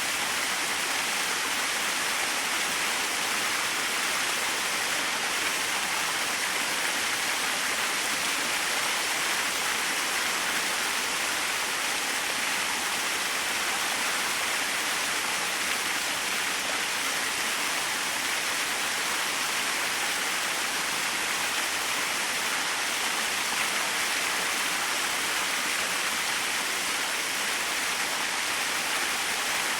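Small waterfall splashing steadily, an even rushing hiss of falling water with little low rumble.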